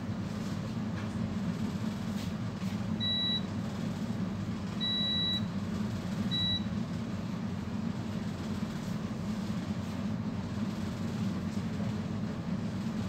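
Three electronic beeps, short, longer, short, a few seconds in, over a steady low hum.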